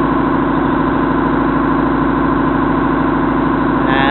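A shrimp boat's engine running steadily at a constant speed.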